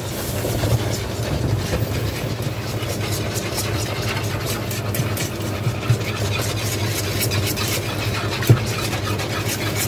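Wire whisk stirring thick brown sauce in a saucepan, the wires clicking and scraping against the pan many times. Beneath it runs a steady low hum.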